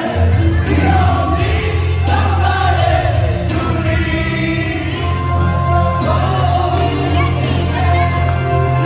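A crowd singing along together over loud music with a heavy, steady bass.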